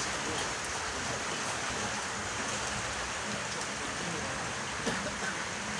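Steady hiss of rain falling, with faint voices in the background.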